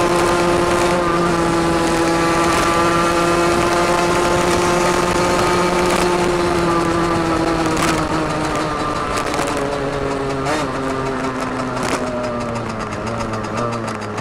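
Derbi Senda DRD 50 cc two-stroke single with a Turbokit sport exhaust, running at steady high revs. After about six seconds its pitch slowly falls as the throttle comes off and the bike slows.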